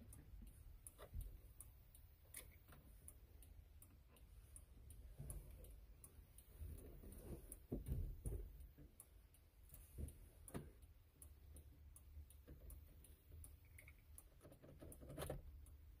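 Faint clicks and rattles of a Ford F-350 ignition lock cylinder and its key being jiggled out of the steering column with a screwdriver held in the release hole, with a couple of louder knocks around the middle.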